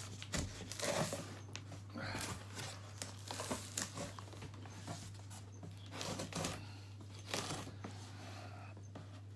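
Cardboard boxes being unpacked: packing tape slit and torn and cardboard flaps scraping and rustling in irregular bursts.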